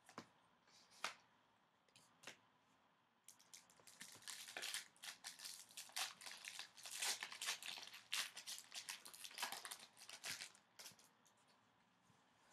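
A few light taps, then from about three seconds in, the foil wrapper of a 2015-16 O-Pee-Chee Platinum hockey card pack being torn open and crinkled for several seconds, dying away near the end.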